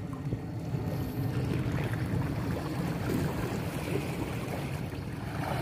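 Steady wind rumble on the microphone over the wash of shallow seawater.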